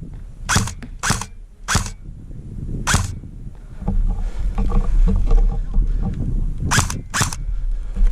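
Airsoft guns firing single shots: six sharp cracks at uneven spacing, two of them close together near the end. From about four seconds in, a low rumble runs under them.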